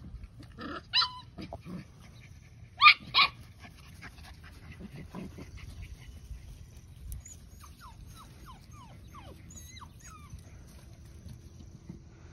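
German Shorthaired Pointer puppies yipping during rough play. There are short high yips about a second in and two sharp, louder yips near three seconds in.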